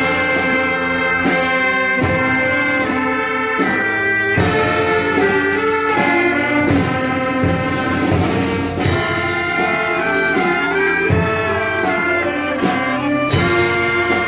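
Wind orchestra playing live, with brass leading in sustained chords that change note. Sharp accented strikes land about every four and a half seconds.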